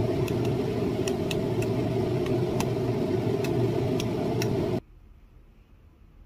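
Metal spoon clicking against a glass bowl about a dozen times while stirring cream and condensed milk, over a steady mechanical rumble. Both cut off suddenly near the end, leaving quiet room tone.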